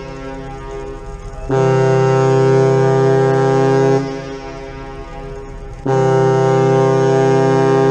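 The MS Chi-Cheemaun ferry's ship's horn sounding long, deep blasts of several steady tones. One blast lasts about two and a half seconds from about a second and a half in. Another starts near the end and runs on past it.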